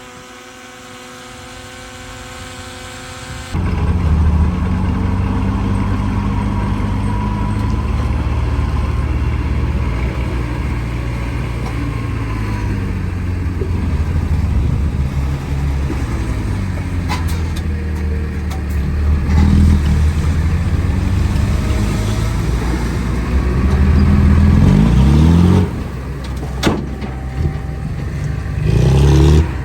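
Heavy diesel engine of earthmoving machinery, a bulldozer or dump truck, running under load with a deep rumble. It comes in abruptly a few seconds in, rises in pitch as it revs near the end, then drops away, followed by a few sharp knocks.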